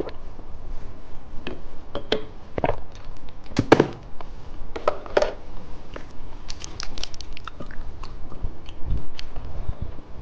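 A person chewing and crunching candy, with irregular crisp crunches and a quick run of fine crackles partway through.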